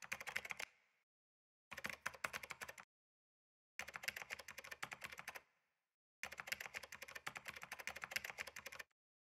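Keyboard typing sound effect: rapid key clicks in four bursts, each one to two and a half seconds long, with short silent pauses between them.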